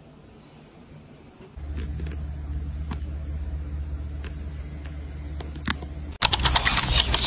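A low, steady machine hum starts about a second and a half in, with a few light clicks over it, and cuts off abruptly about six seconds in. A loud burst of dense crackling handling noise follows.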